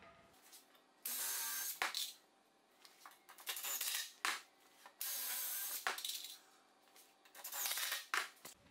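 Cordless Makita drill-driver run in four short bursts, each under a second, biting into an MDF panel as the box is fastened together.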